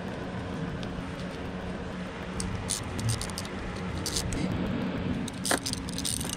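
Scattered light metallic clicks and clinks of a socket wrench and extension at work on the mounting bolts of an outboard's low pressure fuel pump, coming more often near the end, over a steady low background hum.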